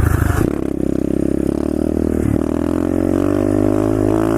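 Pit bike's single-cylinder engine accelerating hard. Its note dips briefly about half a second in and again about two seconds in, as it shifts up a gear, then climbs steadily.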